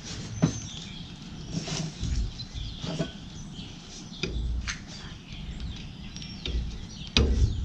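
Scattered light clicks and knocks as a rubber fan belt is worked by hand onto the pulleys of a Massey Ferguson 35 tractor, with a few low thumps and birds chirping in the background.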